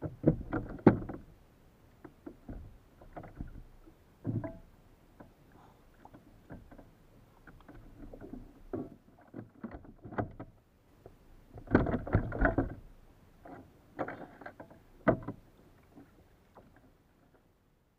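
Irregular knocks and thumps on a Hobie fishing kayak's plastic hull as a freshly caught tuna is landed and handled on deck, with bursts of rapid knocking. The longest run of knocks comes about twelve seconds in.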